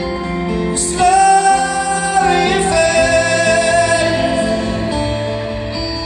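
Live acoustic guitar with long, wordless sung notes held over it, the first starting about a second in.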